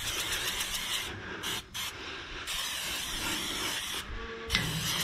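Aerosol can of PAM high-heat cooking spray (canola oil) hissing as oil is sprayed onto a smoker's steel lid. It comes in bursts, with short stops about a second in and again near the end.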